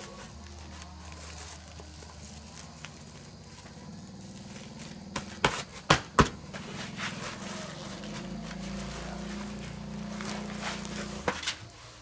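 Woven plastic sack rustling and crinkling as its gathered neck is twisted and tied shut, with a few sharp snaps about five to six seconds in, over a steady low hum.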